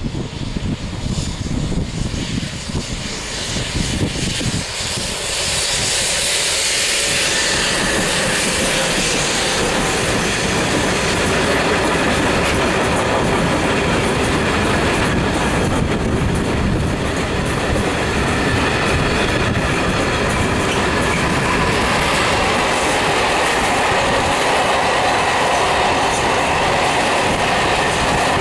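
Two Renfe class 253 (Traxx) electric locomotives approach and pass, followed by a long freight train of loaded steel-coil wagons and open scrap wagons rolling by, wheels running over the rails. The sound builds over the first several seconds, then stays loud and steady.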